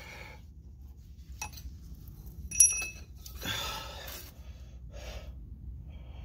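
Metal hand tools clinking: a small click, then one sharp metal clink with a short high ring about two and a half seconds in, followed by a breathy exhale about a second long.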